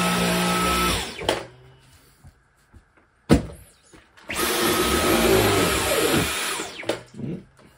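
Dyson V11 cordless stick vacuum running with a steady whine, then winding down about a second in. It has stopped itself after sensing its brush head jamming on the rug. A sharp click follows in the pause, then the motor starts again for a couple of seconds and winds down once more near the end.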